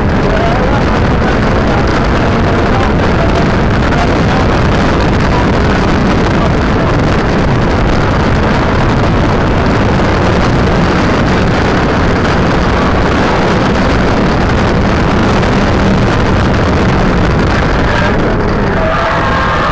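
Car engine pulling hard at track speed, heard on board through a small keychain camera's microphone, with road and wind noise and a steady engine note for most of the time. Near the end the engine note changes and thin higher tones come in.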